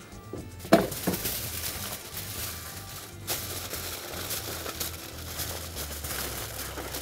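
Aluminium foil crinkling and crackling as it is folded and pressed down over a baking dish, with a sharp crackle about a second in.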